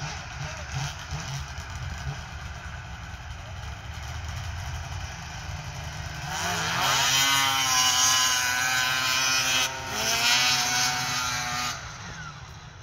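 Two 1998 Ski-Doo Summit 670 snowmobiles' twin-cylinder two-stroke engines, one with twin aftermarket pipes and one with the stock single pipe, idling, then revving hard about six seconds in as they launch side by side. The pitch climbs steeply and holds high and loud for about five seconds, with a brief dip near the middle, then drops away near the end as they back off to brake.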